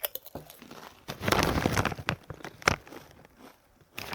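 Honey Butter Chip potato chips crunching and crinkling, with scattered sharp clicks and a dense crackling stretch from a little after a second in until near three seconds.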